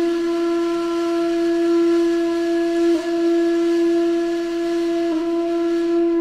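A single long held note at one steady pitch, like a wind instrument, with slight blips about three and five seconds in.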